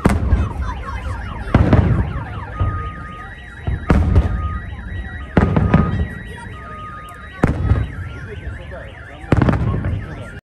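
Aerial fireworks shells bursting in a display: six heavy booms about every one and a half to two seconds, each followed by a low rumble. Under them a car alarm sounds with a repeating sweeping wail and steady on-off beeping tones.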